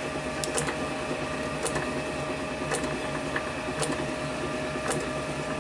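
A small motor runs steadily with a constant hum, and a light click comes about once a second.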